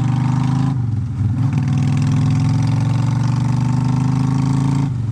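Honda Shadow V-twin running through aftermarket Vance & Hines Cruiser exhaust pipes while riding, a steady, loud, deep exhaust note. The note drops and breaks up briefly about a second in and again near the end, then settles back.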